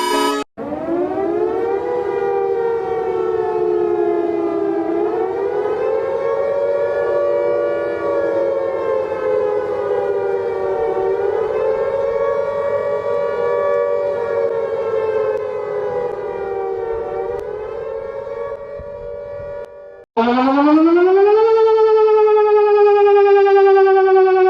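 Air-raid siren wailing. It winds up in pitch over the first second or two, then slowly wavers up and down and fades toward the end. About twenty seconds in it cuts abruptly to a second, louder siren that rises quickly in pitch and then slowly falls.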